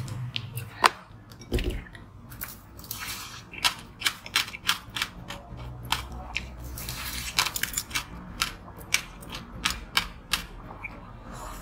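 Teeth biting and crunching into a block of ice coated in passion-fruit pulp: a run of sharp, irregular cracks and crunches, two or three a second, with one loud crack about a second in.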